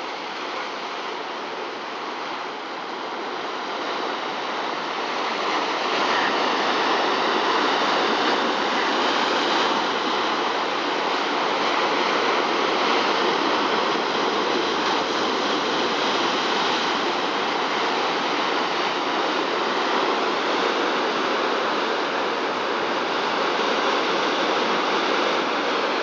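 Rough, storm-driven sea surf churning and breaking around coastal rocks: a steady rush of foaming water that swells over the first few seconds and then holds.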